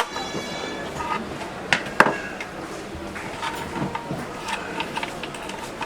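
Scattered clicks and knocks of metal smart-lock parts being handled and fitted to a door, the sharpest about two seconds in, with faint voices behind.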